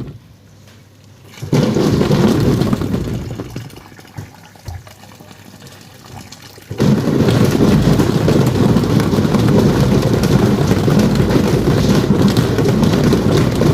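Twin-tub washing machine's wash tub churning soapy water. The churning cuts out at the start, comes back for a second or so, dies away, then starts again about seven seconds in and runs steadily.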